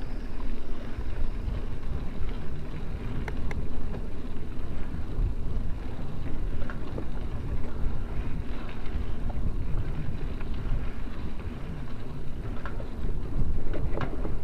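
Wind buffeting the microphone of a camera on a moving bicycle, a steady low rumble, with a few faint ticks about three and a half seconds in.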